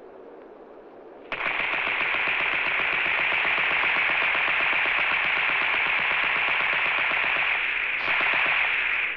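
Machine gun firing one long sustained burst of rapid automatic fire, starting about a second in and cutting off sharply near the end.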